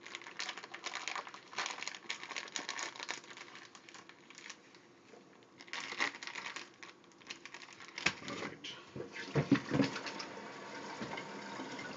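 Clear plastic package of sliced deli turkey crinkling and rustling as it is handled and torn open, heavier and louder in the last few seconds.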